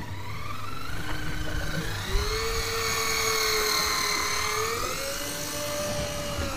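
Electric deep-drop reel, a Shimano Beastmaster, motor whining steadily as it winds a hooked fish up from about 400 m. The pitch wavers with the load, rising about two seconds in and again near the end, over a low hum.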